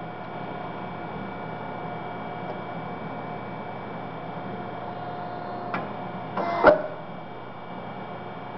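Hose crimping machine's electric motor and hydraulic pump running with a steady hum. A little under six seconds in comes a click, and under a second later a short rush and a sharp clack as the crimp cycle ends and the dies release. The hum is a little quieter afterwards.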